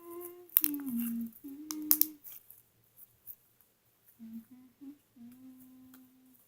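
A girl humming a short tune in held notes, a few notes stepping downward, then short notes and a last long note near the end. Early on, two sharp pops sound from the slime being squeezed in her hands.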